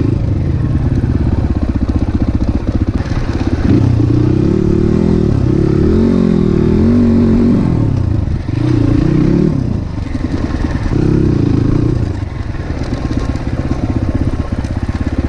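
A Crossfire 250 dirt bike's engine ridden off-road, its revs rising and falling repeatedly as the throttle is worked. Loudness dips briefly a few times, about two-thirds of the way through.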